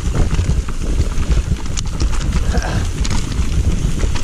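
Mountain bike riding fast down a rough dirt singletrack: a steady low rumble of tyres and wind on the handlebar-mounted camera, with a constant irregular clatter and rattle of the bike over stones and roots.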